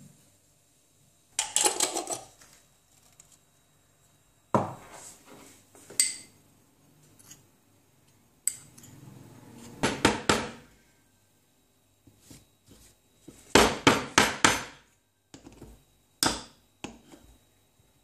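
Sharp knocks and clinks of espresso-making gear: a metal portafilter and tamper being handled, set down and tapped on a wooden board. The knocks come in short groups, with a quick run of about half a dozen taps about two-thirds of the way through.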